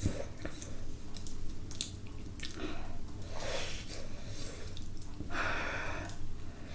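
Close-up eating sounds: chewing a soft roasted sweet potato, with small wet mouth clicks.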